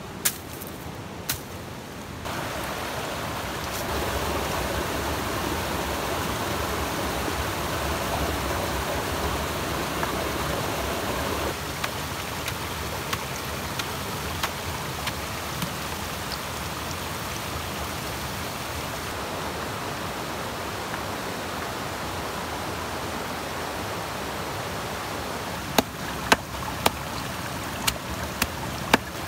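Stream water running steadily over rocks. Near the end, a hand-held stone pounds a pile of green leaves against the rocks in a run of sharp knocks, about two a second.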